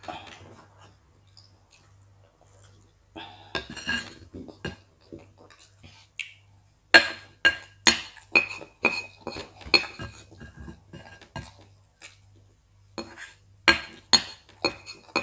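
Utensils and dishes clinking: after a quieter stretch, a run of sharp, irregular clinks with a short ring, like metal or ceramic knocking against china or glass.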